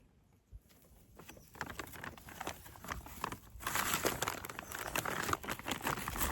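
Hands pushing and patting garden soil around newly planted tomato seedlings: a dense, crackly rustle of many small scrapes and pats that gets louder over the last couple of seconds.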